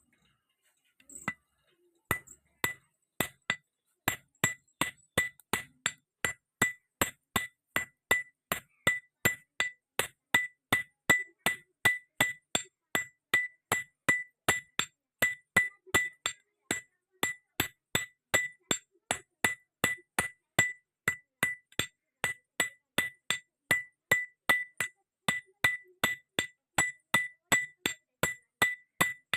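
Blacksmith's hand hammer striking iron on an anvil in a steady rhythm, about two to three blows a second, each blow with a ringing ping from the anvil. This is the forging of a railway clip into a chisel.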